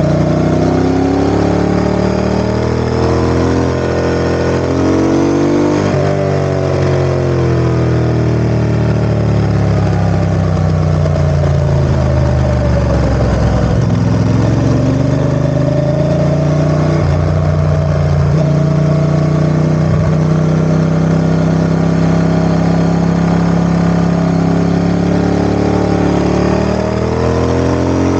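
Ducati ST4S's 996 cc L-twin engine running with the revs rising and falling. The pitch dips lowest about halfway through, holds fairly steady for a stretch, then drops near the end.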